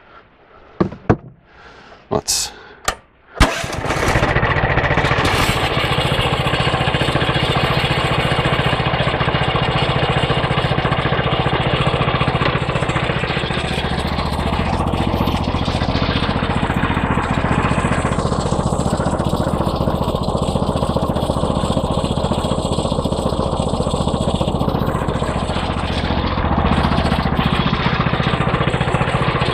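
A few sharp knocks, then a 14 hp 420cc single-cylinder gasoline engine, the homemade bandsaw sawmill's power unit, starts about three and a half seconds in and runs steadily for the rest of the time.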